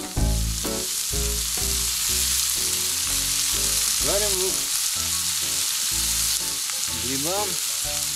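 Sliced onions sizzling steadily in oil in a small frying pan over a wood fire, with a spatula stirring them.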